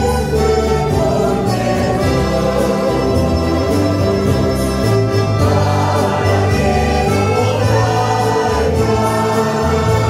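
Small church ensemble performing a hymn: several voices singing in Spanish over acoustic guitars, accordion and keyboard, with low bass notes changing every second or two.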